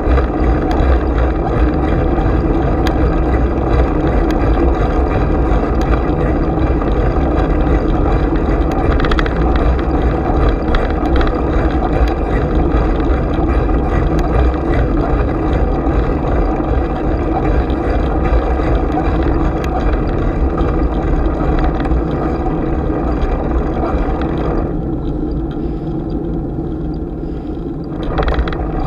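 Bicycle riding noise picked up by a GoPro: steady wind rumble on the microphone with the bike's running noise. The higher hiss drops away about four seconds before the end, then comes back briefly.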